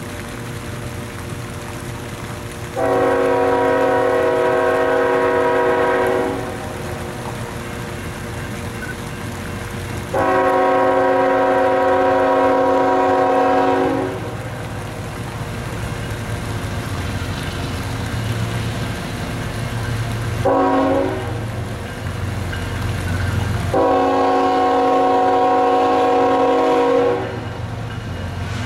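A GE ET44AC diesel locomotive's air horn sounding a chord in the grade-crossing pattern: two long blasts, a short one, then a long one, as the train approaches a road crossing. A steady low diesel engine rumble carries on between the blasts.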